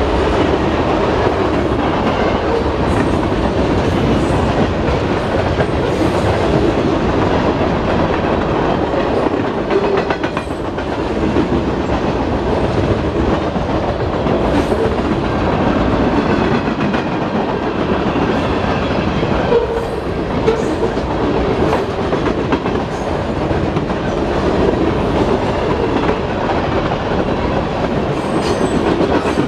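Freight train cars rolling past at a level crossing: a steady rumble of the train with the clatter of wheels clicking over the rail joints.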